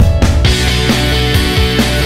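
Background rock music, with the sound becoming fuller and denser about half a second in.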